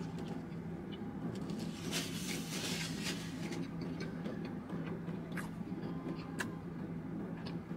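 Eating sounds: a napkin rustling about two seconds in, then a few sharp light clicks as fingers pick food from a white takeout container, over a steady low hum.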